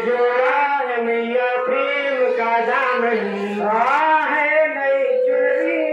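A man singing into a microphone, amplified, in long held notes that slide up and down in pitch.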